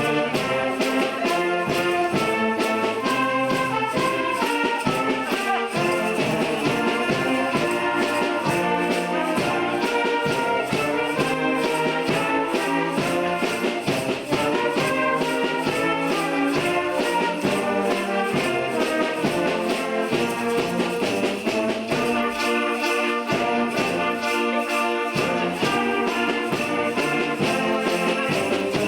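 Instrumental holiday music played by an ensemble, without singing, over a steady beat of shaken percussion.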